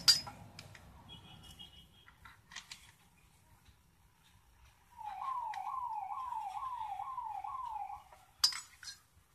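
A siren-like electronic tone that jumps up and slides down in pitch about twice a second, six times over three seconds, then stops abruptly. Sharp clicks and knocks from handling a circuit board and its wires come before and after it, the loudest near the start and near the end.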